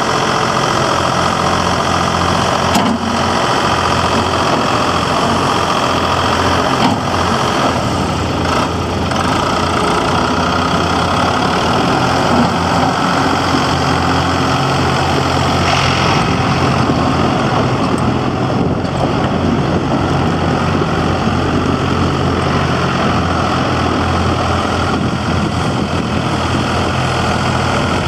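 New Holland TN75DA tractor's diesel engine running steadily at low speed as the tractor drives slowly over gravel.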